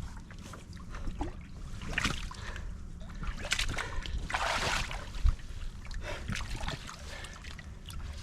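Water splashing and sloshing beside a kayak where a large white sturgeon is held in the water, with scattered small knocks and one sharp thump about five seconds in.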